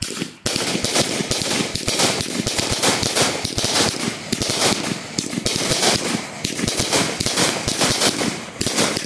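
Fireworks going off in a dense, unbroken barrage of sharp cracks and pops, starting about half a second in.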